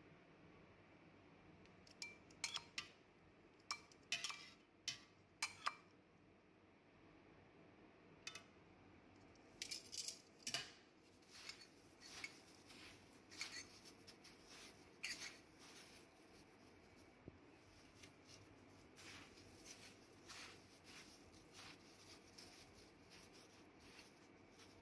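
Stainless steel kitchen tongs clicking and tapping in a foil tray as fish fillets are lifted out of a milk marinade, a run of sharp metallic clicks. Then more light taps and softer knocks as the fillets are pressed into breadcrumbs in a steel bowl.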